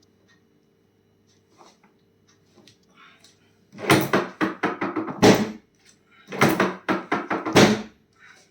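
Two loud bursts of cracking and knocking from a chiropractic adjustment, each about a second and a half long, one about four seconds in and one near the end.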